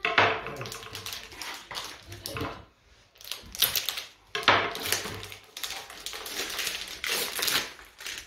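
Knife cutting a block of kaşar cheese on a cutting board: a run of irregular taps and clicks as the blade meets the board.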